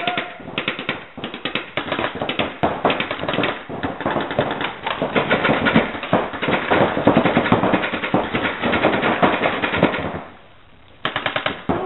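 Rapid, dense firing of reball markers (paintball guns shooting reusable balls), many shots overlapping; the firing stops for under a second near the end, then starts again.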